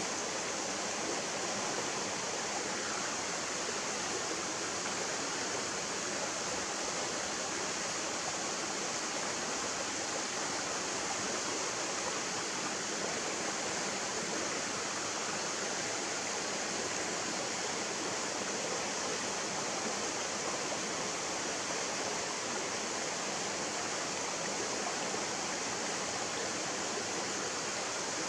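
A shallow mountain stream running over rocks, a steady, unbroken sound of moving water.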